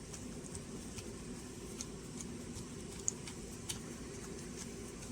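Scattered light clicks, a few a second and irregular, of a Phillips screwdriver driving a screw into a plastic battery housing, with one sharper click about three seconds in, over a steady low hum.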